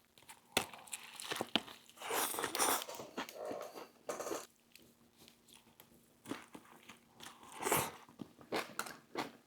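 Close-miked bites and chewing of an overstuffed veggie cheesesteak sandwich piled with lettuce and pickles: crunching with wet mouth clicks, in two bouts with a short pause between them.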